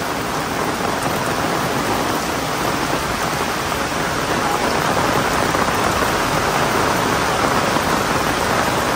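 Heavy rain pouring down steadily: a dense, even hiss of a downpour that grows a little louder toward the end.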